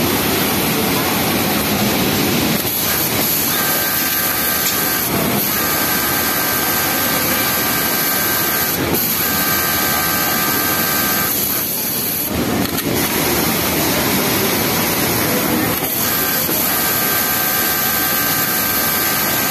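Yamato industrial flatlock sewing machine stitching a T-shirt hem, running in several short spells with a steady whine and stopping briefly between them as the fabric is repositioned. Under it is a constant loud machine din.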